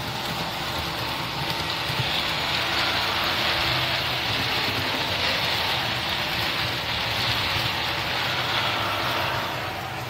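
Sound-fitted OO gauge model diesel train running past: a steady diesel engine hum from its onboard sound decoder, with the running noise of its wheels on the track growing as the coaches pass close and dying away near the end.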